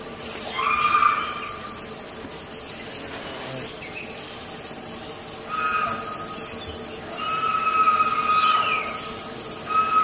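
Several high-pitched, drawn-out cries from an unseen animal, each a steady tone with a short rise or fall at its end. The longest is held for about a second and a half near the end. The uploader takes them for a prey animal crying for help after being grabbed by a predator. A steady insect drone runs underneath.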